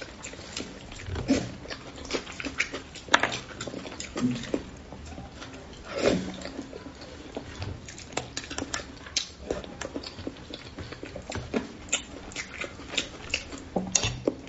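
Close-miked chewing and lip-smacking while eating spicy braised crucian carp: irregular wet clicks and smacks with the odd low thud.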